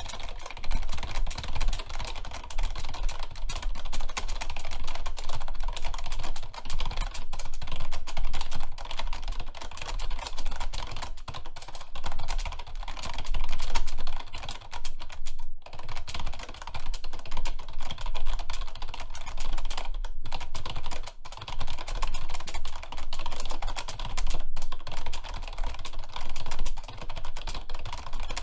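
Very fast, continuous typing on a computer keyboard, a dense stream of key clicks with only brief pauses, during a timed speed test at about 139 words per minute.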